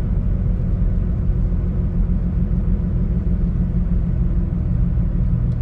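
Tire road noise from worn Ohtsu FP8000 tires on a car coasting with no throttle: a steady low rumble that sounds like driving a truck.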